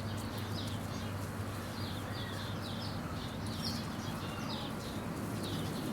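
High-pitched chirping: short chirps repeating several times a second in runs, over a steady low hum.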